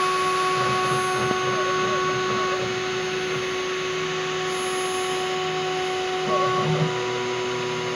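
Home-made CNC router isolation-milling a copper-clad PCB: the spindle runs with a steady tone over the noise of the bit cutting the board. The stepper motors hum at pitches that jump abruptly as the axes change speed, near the start and again near the end.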